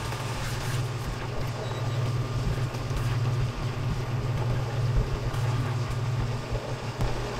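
Mushroom and tomato sauce simmering and sizzling in a nonstick wok over a steady low hum. Partway through, a silicone spatula stirs it with a few soft scrapes and taps.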